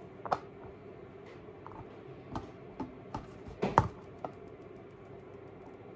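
Scattered light taps and clicks of hands handling things on a kitchen counter, the sharpest about two-thirds of the way through, over a faint steady hum.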